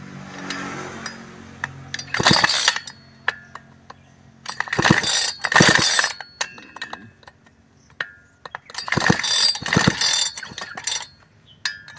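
Chainsaw recoil starter pulled several times in quick strokes, cranking the two-stroke engine without it firing, while it is checked for spark. No spark comes: the ignition coil is faulty.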